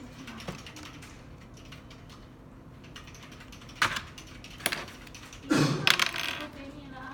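Light clicking, then a sharp knock about four seconds in, another just under a second later, and a louder cluster of thuds and rustling near the six-second mark.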